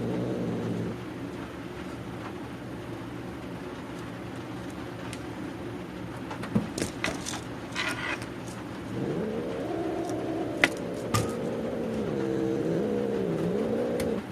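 A feral cat's long, low growling yowl: a drawn-out moaning call that rises and swells about nine seconds in and wavers up and down, the sound of an angry, defensive cat. A few sharp clicks and taps come in the middle.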